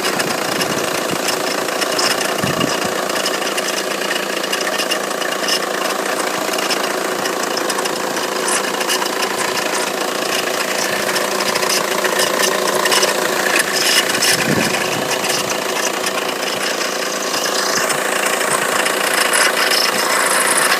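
Renault Mégane Scénic turbo-diesel engine idling steadily, with the strange noise from its belt-driven accessory drive, which the owner's mechanic suspects is the water pump. A rising whine comes in near the end.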